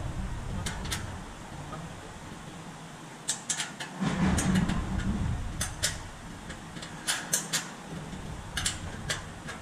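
Sharp metallic clinks and taps as parts are handled and fitted on a large metal exhaust silencer pipe, some in quick pairs, over a steady low workshop machinery hum. A short, louder low rumble comes about four seconds in.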